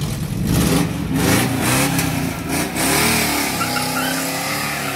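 ZAZ-968M Zaporozhets's rear-mounted air-cooled V4 engine revving as the car pulls away and drives off. Its pitch rises and falls over the first few seconds, then steadies as the car moves away.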